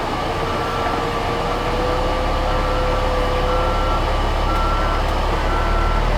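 Tucker Sno-Cat reversing, its backup alarm beeping about once a second over the steady running of the engine.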